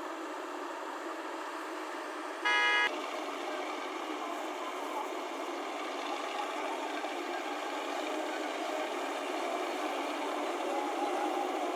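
A vehicle horn toots once, briefly and loudly, about two and a half seconds in, over the steady noise of an engine running.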